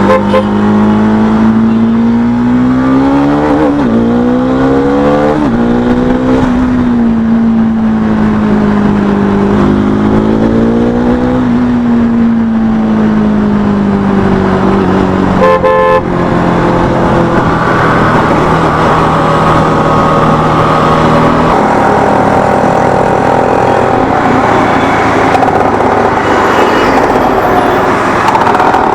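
Bajaj Dominar 400 single-cylinder engine heard through a Leo Vince aftermarket exhaust while riding. The exhaust note rises and falls with the throttle, then holds steadier. A short horn toot comes about halfway through.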